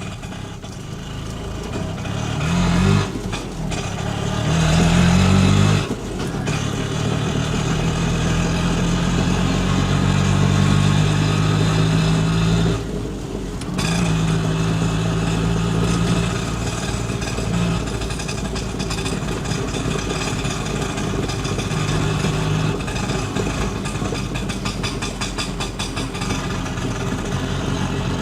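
Auto rickshaw engine heard from inside the cabin while driving: it revs up twice early on, each rise dropping off sharply as the driver shifts, then settles into a steady cruising drone. It eases off briefly about halfway through and then picks up again.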